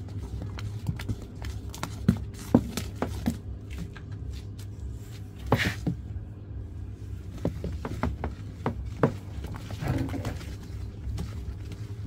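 Thick, foamy liquid detergent being stirred with a wooden stick in a plastic basin: wet churning with scattered knocks and clicks, over a steady low hum.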